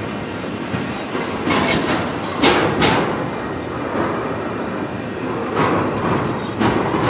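Union Pacific double-stack container train rolling past at close range: a steady rumble of wheels on rail broken by several sharp clacks, the loudest two close together about two and a half seconds in.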